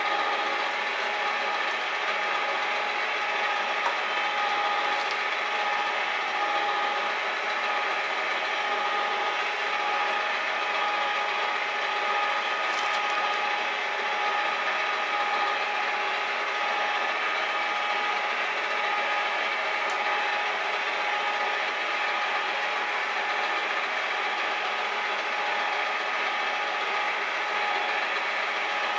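Metal shaper running steadily while cutting a steel block, a continuous mechanical sound of its gears and ram with a couple of steady tones held throughout.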